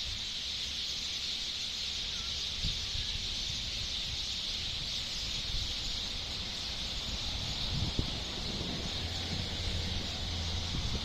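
Many birds chirping together in a dense, steady chorus, with no single call standing out. Low rumbling from wind or handling on the microphone underneath.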